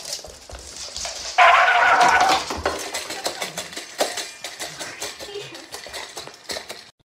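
A dog eating from a metal bowl: quick, irregular clinks of food and snout against the steel. Near the start a loud held tone lasts about a second.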